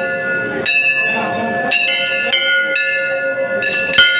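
Brass temple bells struck over and over at irregular intervals, each strike ringing on in several steady tones that overlap the next. The loudest, closest strike comes about four seconds in.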